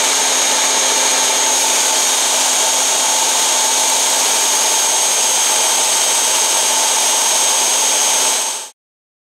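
Bosch 1273DVS belt sander running at a steady pitch, with a high whine over the belt noise. It cuts off suddenly near the end.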